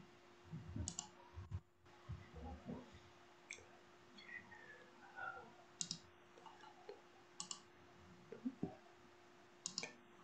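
Quiet room sound with a handful of faint sharp clicks every couple of seconds and a few soft low knocks over a steady low hum.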